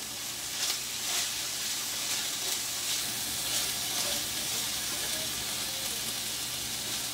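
Chicken pieces sizzling as they fry in a skillet: a steady hiss with a few faint crackles.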